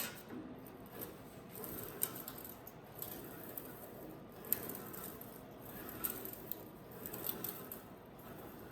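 A few light, irregular knocks and clicks over a low background hum, like sheet-metal parts and tools being handled.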